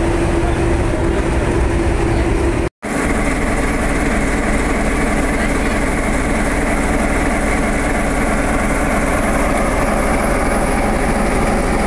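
Class 47 diesel-electric locomotive's Sulzer 12LDA28 engine idling steadily, heard close up, with a brief cut-out nearly three seconds in where the recording is edited.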